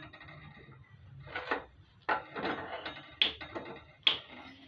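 A few sharp clicks and knocks of metal pots and ladles being handled at a gas stove, roughly a second apart.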